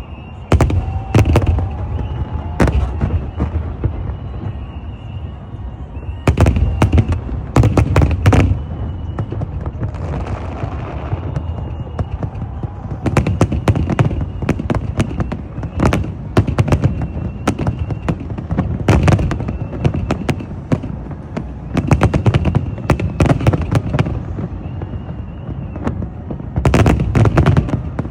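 Fireworks bursting in rapid volleys of sharp bangs. The volleys come in clusters a few seconds apart over a steady background din.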